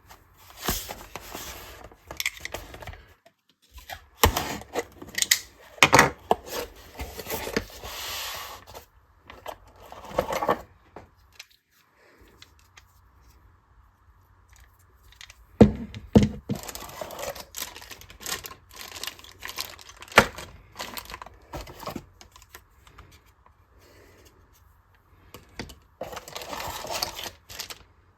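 Packaging being torn and crinkled, with small hard parts clicking and rattling as they are handled, in irregular bursts with short pauses.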